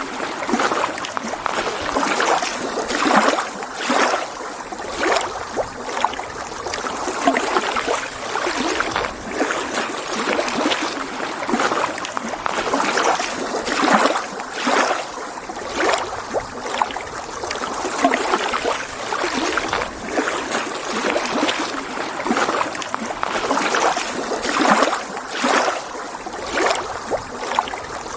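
Small lake waves lapping against the shore: steady splashing water with irregular short slaps about once a second.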